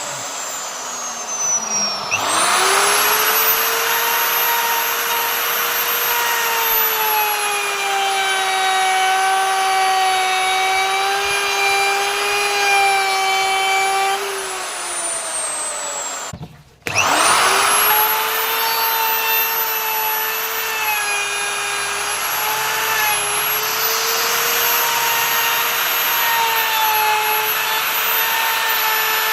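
Electric wood router's motor spinning up to a steady high whine and running. About halfway through it winds down, cuts out for a moment, then spins up again and runs steadily.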